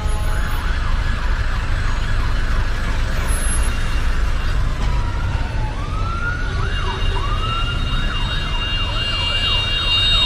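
Emergency vehicle sirens wailing, several overlapping, each rising and falling in pitch. Near the end one cycles fast, about three times a second. A steady low rumble runs underneath.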